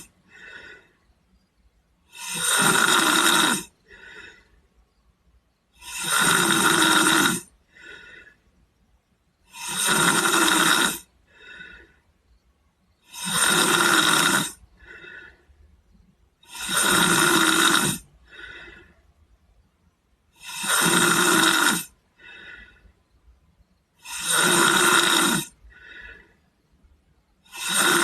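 A sleeping boy snoring in an even rhythm, with about eight loud snores, one roughly every three and a half seconds. Each snore lasts about a second and a half and is followed by a short, fainter sound as he breathes out.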